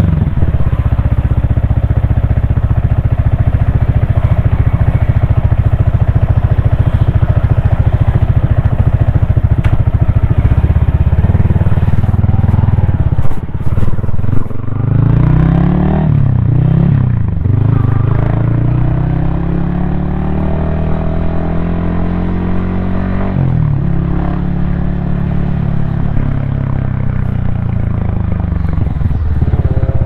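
Yamaha XSR155's single-cylinder engine running on the move, recorded from a helmet mount, with a steady rush of noise through the first half. A few knocks come just before the middle, then the engine note rises and falls with the throttle and gear changes, dropping sharply once about three-quarters of the way in before climbing again.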